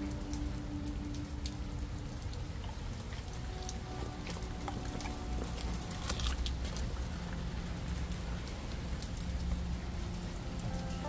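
Steady rain falling on a wet patio, with many sharp ticks of single drops scattered through it.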